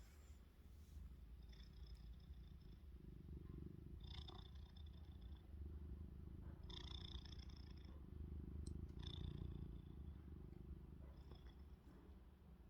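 Domestic cat purring, a faint continuous low rumble, with a thin high whistle on its breaths about every two to three seconds as it snores.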